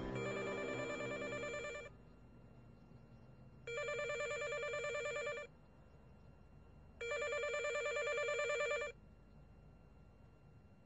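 Telephone ringing three times with an electronic trilling ring. Each ring lasts just under two seconds, with pauses of about a second and a half between them.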